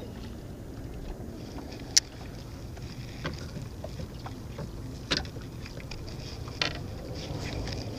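Three short sharp knocks of fishing gear being handled in a small plastic boat, the first the loudest, over a steady low background rumble.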